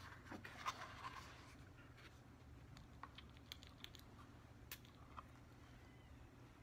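Near silence with faint scattered clicks and taps as a glass perfume bottle and its packaging are handled, with one sharper tick near the end.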